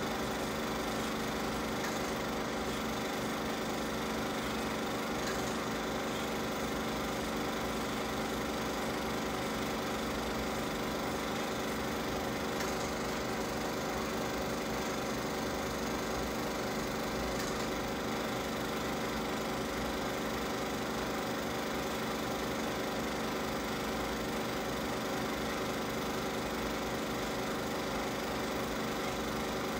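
Film projector running steadily: a continuous mechanical whir with a fast, even flutter underneath from the film advancing through the gate.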